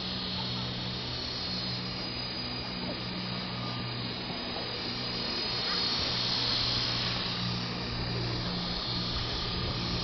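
Blade CP Pro electric RC helicopter flying: a steady low hum from its motor and rotor, swelling slightly about halfway through. Heavy wind hisses on the microphone throughout.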